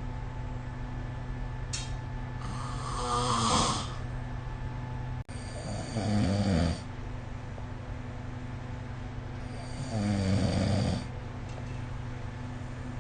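A sleeping person snoring: three snores a few seconds apart, each a rattling buzz through the breath, with quieter breathing between them.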